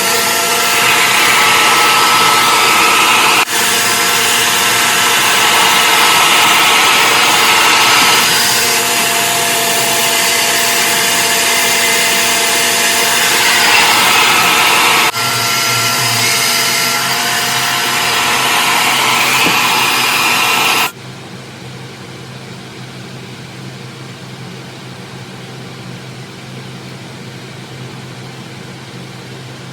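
Revair reverse-air hair dryer running loudly and steadily, a suction motor with a rushing-air hiss and a steady hum. About two-thirds of the way through it drops sharply to a much quieter steady hum.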